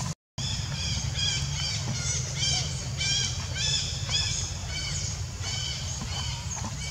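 A bird calling over and over, short high chirps about two to three a second, over a steady low rumble of background noise. The sound drops out for a moment just after the start.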